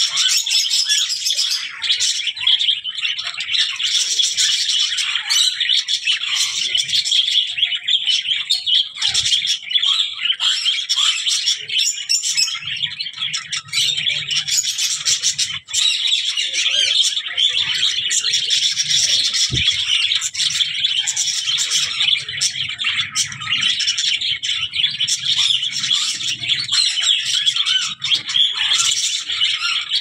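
Budgerigars chattering and warbling, a steady stream of overlapping chirps and squawks.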